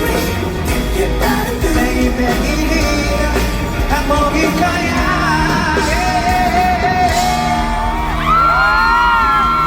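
Live pop-rock band playing through a loud concert PA, with a lead voice singing long held notes. The audience yells and cheers over it, with high drawn-out screams rising near the end.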